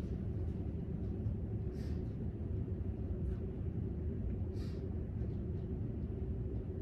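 Steady low rumble of library room tone, with a few soft, brief rustles, about three of them.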